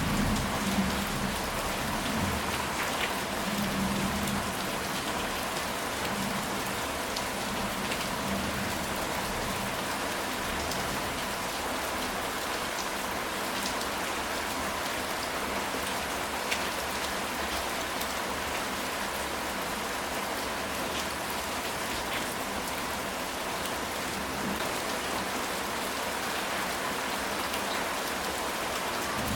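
Steady rain falling on a ceramic tile roof: a constant patter with scattered individual drop ticks.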